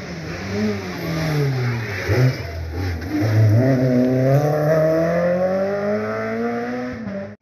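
Renault Clio rally car's engine. Its revs sink as it comes off the throttle for a hairpin about two seconds in, then climb hard and stay high as it accelerates away up the road.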